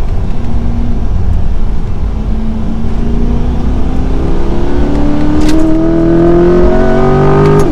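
Chevrolet Corvette C8 Stingray's mid-mounted 6.2-litre V8 pulling hard under acceleration, its note climbing steadily for several seconds, then dropping suddenly at the very end as the dual-clutch gearbox upshifts.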